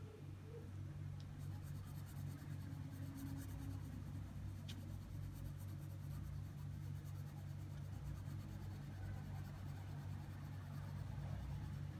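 Pencil tip scratching lightly and steadily on sketchbook paper in short shading strokes, over a steady low hum.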